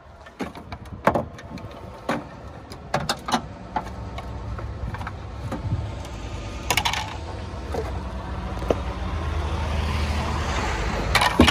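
Loose plastic trim pieces and parts knocking and clattering as they are rummaged through and lifted out of a Jeep Wrangler's cargo area, with a series of sharp knocks in the first few seconds. Over the second half a motor vehicle's running noise swells steadily louder.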